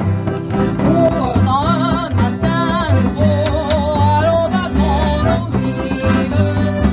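Folk band playing a French song: a woman singing with wavering vibrato over button accordion, acoustic guitar, double bass and a drum struck with a stick. The singing comes in about a second in.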